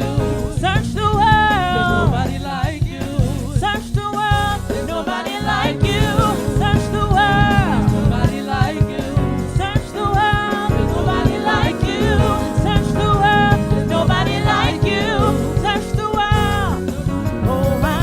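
Gospel worship music: singing with melismatic runs over a steady instrumental accompaniment.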